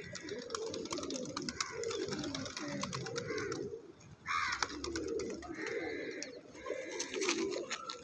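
A flock of domestic pigeons cooing continuously, many low overlapping coos at once, with scattered light clicks.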